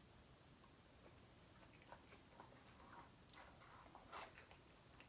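Near silence, with a few faint clicks and soft sounds of someone eating from a small bowl with a fork.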